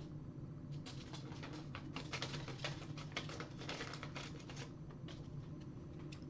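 Hands handling a paper CD label and tape: a run of small, irregular clicks and rustles over a low steady hum.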